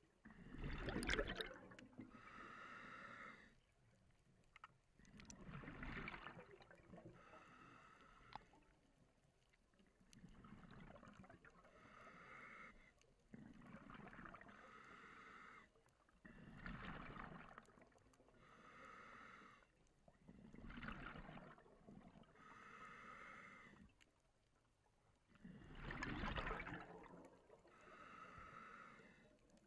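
Scuba diver breathing through a regulator underwater. The exhale comes out as a burst of bubbles and each inhale is a shorter hiss, in a faint cycle of about six breaths, one every four to five seconds.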